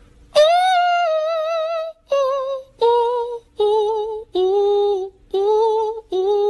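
A high singing voice holding a string of about seven separate long notes, each with a strong wobbling vibrato, the melody stepping downward from high notes to lower ones. It is the singing laid over the "singing lion" meme.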